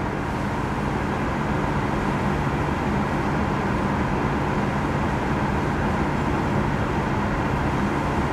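Tesla Model 3 climate-control blower running with the fan turned up, heard from inside the cabin: a steady rush of air with a low hum underneath, building a little in the first second and then holding even.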